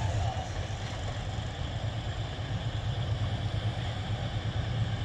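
Diesel locomotive's engine running as the train approaches, a steady low rumble that grows slowly louder.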